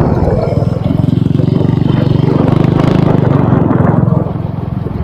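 Wind buffeting an action camera's external microphone on a moving motorcycle, a dense low rumble mixed with the motorcycle's running engine, easing a little near the end.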